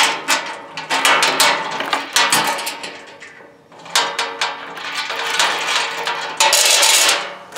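Steel chain links clinking and rattling against a sheet-steel welding-cart panel as the chain is hooked into its slot. The clinking comes in two spells with a short lull about three seconds in.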